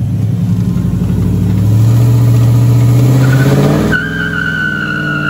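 Pickup truck engine revving up and held high, then climbing further. About four seconds in, the revs drop and a steady high tire squeal starts as the tires spin in a burnout.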